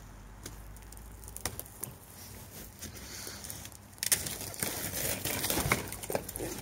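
Thin sheet of ice over a puddle of water cracking as a hand breaks it and lifts a slab out. A few faint ticks come first, then about four seconds in a loud run of crackling and snapping.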